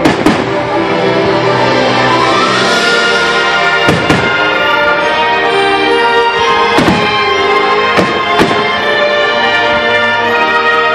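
Orchestral music plays continuously while firework shells burst over it: two bangs at the start, two more about four seconds in, and further bangs about seven and eight seconds in.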